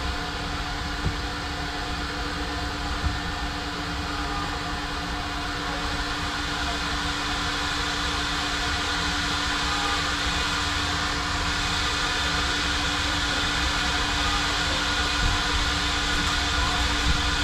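Coin-operated car wash vacuum running steadily: a constant rushing drone with a steady hum. There are two brief knocks, about one and three seconds in.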